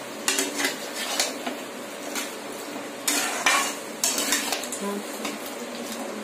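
Metal spoon stirring and scraping chicken masala around a metal kadai in irregular strokes, over a steady sizzle of frying.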